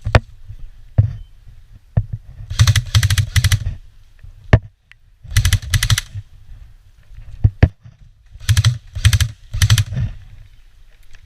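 Airsoft guns firing: three rapid full-auto bursts of quick clicking shots, each about a second long, with a few single sharp shots between them.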